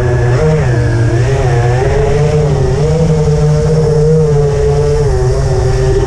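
FPV racing quadcopter's brushless motors and propellers whining, the pitch wavering up and down as the throttle changes.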